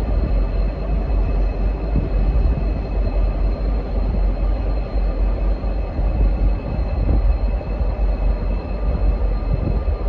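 Two V/Line N class diesel-electric locomotives running as they move slowly forward: a steady, heavy engine rumble with a faint steady whine above it.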